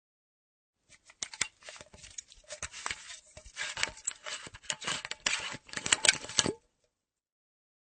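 Half-empty metal flask's screw cap being turned open and closed: a quick, irregular run of metallic clicks and scraping. It starts about a second in and lasts about five and a half seconds.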